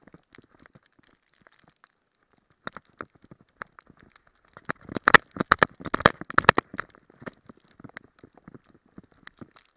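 Close crunching and crackling of a dog moving through snow and grass, picked up by a camera worn on the dog. A dense run of louder crackles lasts about two seconds midway.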